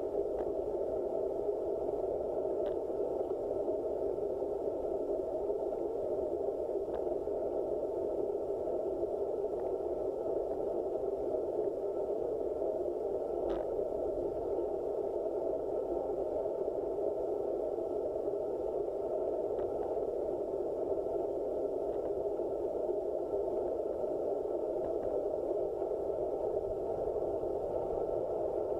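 Steady, muffled rush of wind and road noise picked up by a handlebar-mounted action camera on a road bike rolling along at a steady pace, with a few faint clicks now and then.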